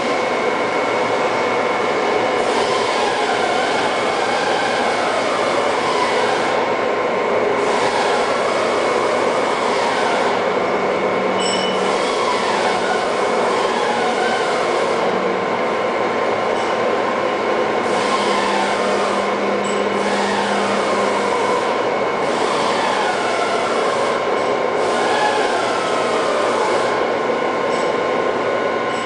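Cincinnati Gilbert Model J CNC horizontal boring mill running, with a steady machine whine. Drive whines slide down in pitch again and again as the spindle head traverses down the column.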